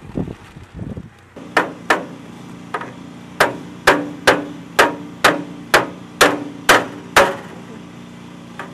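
A claw hammer driving nails through a wooden strip to fasten a blue tarp onto a roof: about a dozen sharp blows, roughly two a second, over a steady low hum. Before the hammering, about a second of low rustling.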